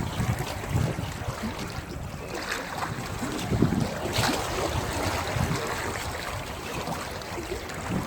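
Wind buffeting the microphone in irregular gusts over sea water lapping and splashing.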